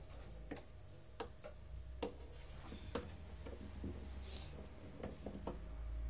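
Faint, irregular clicks, about a dozen spread unevenly, over a low steady hum, with a short hiss about four seconds in.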